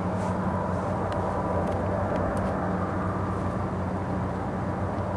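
Steady low drone of the Royal Gorge Route train's diesel locomotives running along the gorge floor.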